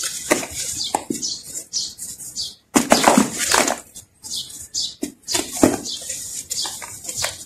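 Dry earthy sand chunks crushed and crumbled by hand, giving irregular crunchy crackles and gritty rustling. A longer, louder stretch of crunching comes about three seconds in.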